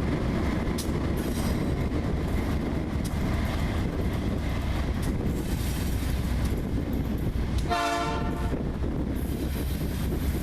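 Freight train rolling by with a steady low rumble, and one short horn blast about eight seconds in.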